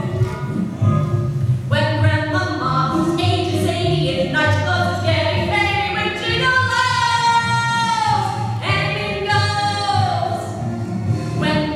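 Two women singing a show tune into microphones over an instrumental backing, with a long held note near the middle that slides down at its end.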